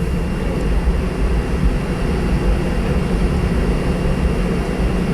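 Steady cabin noise inside a Boeing 717-200: a low, even rumble from its rear-mounted Rolls-Royce BR715 turbofan engines and the airframe, with a faint thin whine above it.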